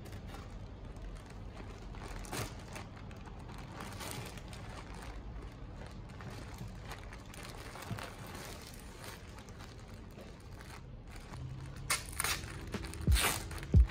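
Plastic poly mailer bag crinkling and rustling as it is slit open with a box cutter and pulled apart. Near the end, sharper, louder crinkles as a clear plastic garment bag is handled.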